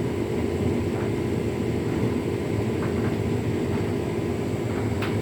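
Hotpoint Ultima S-line 9 kg tumble dryer running: a steady motor hum and drum rumble, with a few faint knocks from a tumble dryer ball in the drum.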